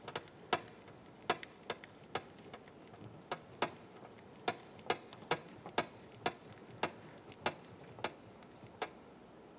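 Sharp, irregular clicks, roughly one or two a second, as a door lock knob is turned clockwise by hand onto its threaded lock rod.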